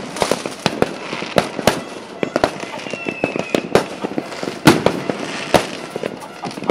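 Fireworks going off in quick, irregular succession: many sharp bangs and pops over a continuous crackle, with a brief faint high whistle about three seconds in.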